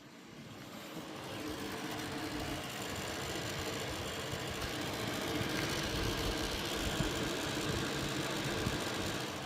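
Gigabyte Radeon RX 7900 XT graphics card fans running with a rough grinding noise, a fault on a two-month-old card. The noise builds over the first couple of seconds, holds steady, and falls away near the end.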